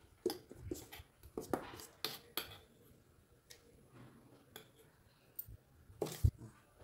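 A spoon clinking and scraping against stainless steel dishes as chutney is served from a steel bowl into a divided steel plate: a run of light clinks in the first couple of seconds, then a louder couple of knocks about six seconds in.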